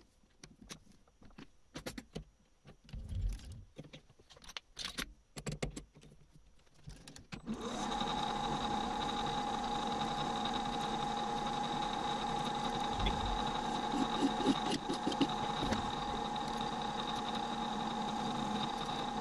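A few scattered clicks and knocks of handling, then about seven and a half seconds in a metal lathe starts up and runs with a steady whine while the end of a bar is faced and then drilled from a tailstock drill chuck.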